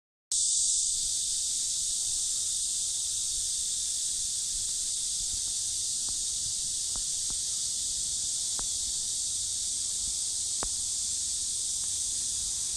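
A steady high-pitched hiss with a few faint ticks, starting just after the beginning.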